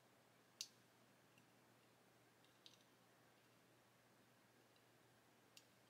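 Near silence broken by a few faint, sharp clicks, the loudest about half a second in: fine tweezers tapping and clicking against small plastic model-kit parts as spark plug leads are pressed into their holes.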